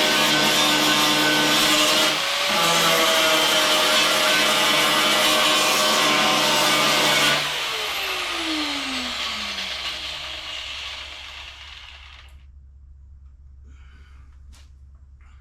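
Electric angle grinder running at full speed on sheet-metal body panel, its pitch briefly shifting about two seconds in, then switched off about seven seconds in and spinning down with a falling whine over several seconds.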